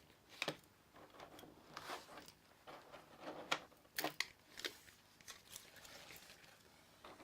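Faint handling noises of a small poplar workpiece being turned over on a workbench: a string of light, irregular wooden knocks and clicks with some rustling.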